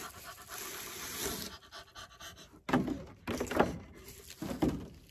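Bubble wrap and plastic rustling as a wrapped framed print is pulled from its box. About halfway in come a few loud, heavy, excited breaths, the loudest sounds here.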